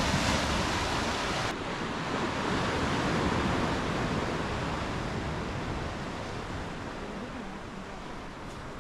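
Sea surf washing against a rocky shore, with wind on the microphone. The hiss drops suddenly about a second and a half in, then slowly grows softer.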